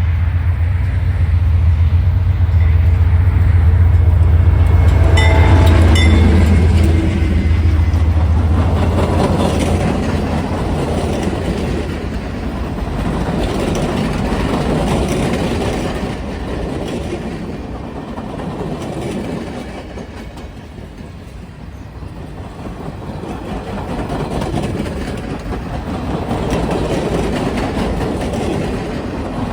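Diesel-hauled passenger excursion train passing: a heavy low locomotive engine rumble for the first several seconds, with a brief high tone about five seconds in, then the passenger cars rolling by with the clickety-clack of wheels over rail joints, swelling and fading.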